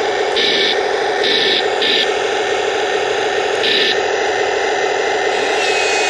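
Remote-control toy tank's simulated engine sound playing through its small built-in speaker: a steady, static-like rumble. Four short hissy bursts come in over the first four seconds.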